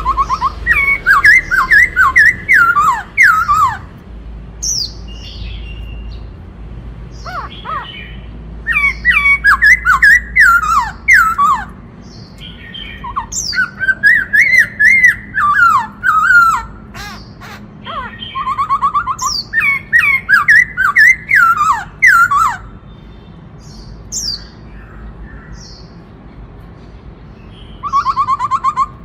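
Black-throated laughingthrush (khướu bạc má) singing loud phrases of quick, repeated down-slurred whistles, in bursts of a few seconds with short pauses between.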